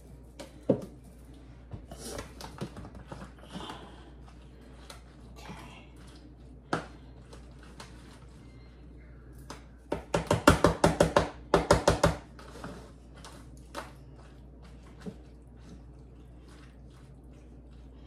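Spoon mixing macaroni, cheese and cream in a pan: scattered scrapes and clicks, with a run of rapid knocks, about six a second, lasting about two seconds midway.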